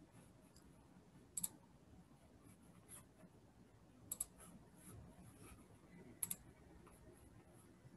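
Near silence with a low hiss and a few faint, short clicks.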